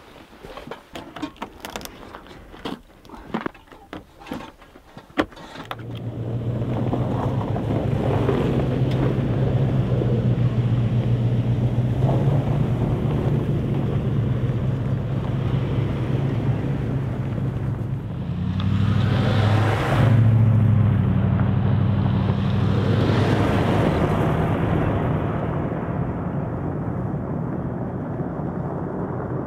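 Vehicle engine running steadily under way, rising in pitch for a few seconds about two-thirds of the way through. Before the engine comes in, a few seconds of scattered sharp clicks and knocks.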